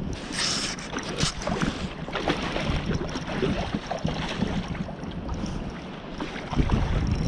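Wind buffeting the microphone with a steady low rumble, over scattered short clicks and rattles from a spinning rod and reel being handled.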